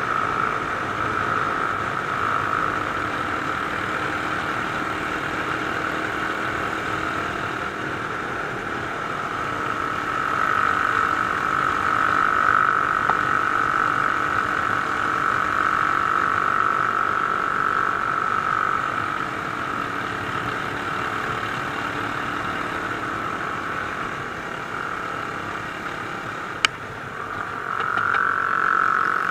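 Onboard sound of a Mash Cafe Racer 250 motorcycle under way: its engine runs on steadily under wind noise. It grows louder for several seconds in the middle and eases off, and near the end a single sharp click comes just before the engine climbs again.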